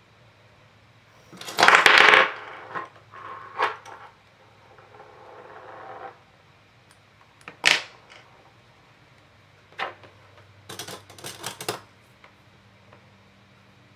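Craft tools and small objects handled on a tabletop: a loud rustle about a second and a half in, then scattered clicks and taps as metal tools are picked up and set down, with a quick run of taps near the end.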